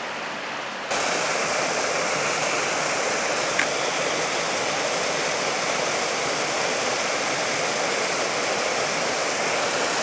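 Small waterfall on a mountain stream: a steady rush of falling water that cuts in suddenly about a second in, with one faint click a few seconds later.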